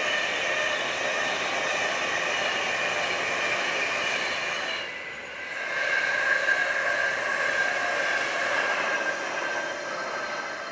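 Class 390 Pendolino electric express trains passing at speed: a steady rush of wheels on rail with steady high tones. The sound dips and changes about five seconds in, as a second train passes.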